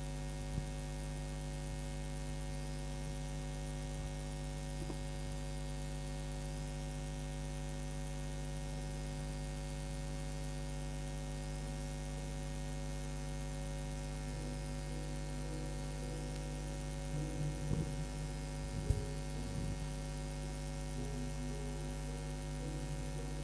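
Steady electrical mains hum with a stack of even buzzing overtones, typical of a sound system or recording feed with nobody speaking. A few faint brief knocks come about three quarters of the way through.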